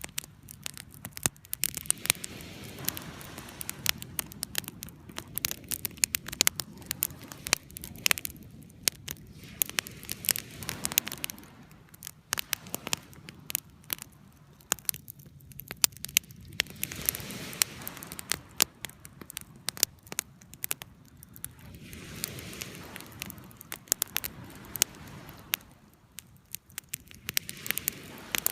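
Wood campfire crackling with frequent sharp pops, over ocean waves washing in and out in slow swells every few seconds.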